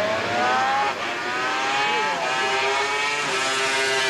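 Racing motorcycle engine accelerating hard, its note climbing and dropping sharply at two gear changes, then holding a lower, steadier pitch.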